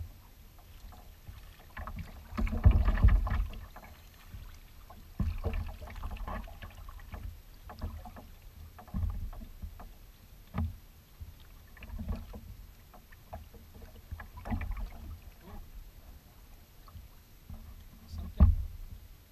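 Kayak paddle strokes splashing and water lapping against the kayak hull, coming in irregular swells every second or two. A few sharp knocks are heard, the loudest near the end.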